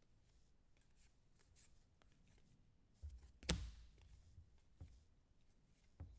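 Quiet handling of trading cards: faint soft clicks and rustles as cards are sorted, with one sharp knock on the table about three and a half seconds in.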